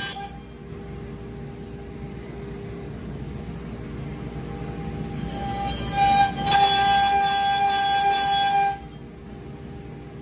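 Axiom CNC router spindle running with a steady whine as the bit carves letters into a wooden board, with background music playing.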